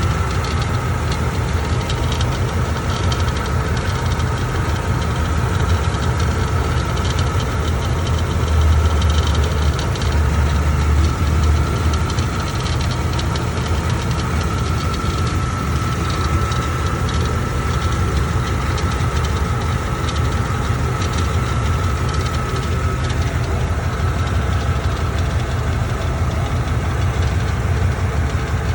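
1998 Jeep Grand Cherokee ZJ's 5.2-litre V8 running steadily, with a creaking and ticking from the undercarriage: the sign of a loose metal transmission hose.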